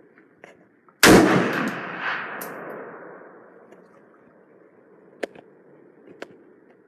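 A single gunshot about a second in, its echo trailing away over about two seconds, followed later by two faint sharp clicks.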